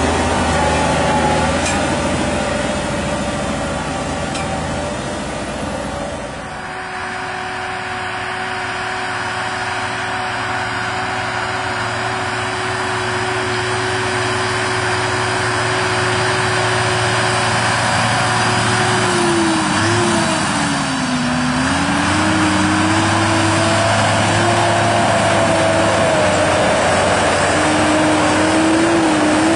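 Large farm tractor engine running steadily under load while ploughing. The sound changes abruptly about six seconds in. Around two-thirds of the way through, the engine note dips in pitch and then recovers.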